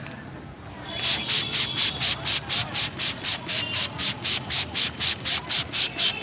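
Hands rubbing briskly over hair and scalp in a head massage: an even, rapid rubbing rhythm of about four to five strokes a second, starting about a second in.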